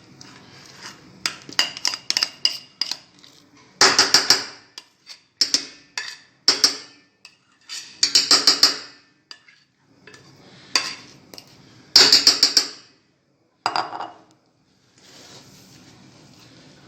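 Utensil clinking and scraping against a bowl and baking pan as cake batter is transferred into the greased pan, in repeated short bursts of rapid clinks.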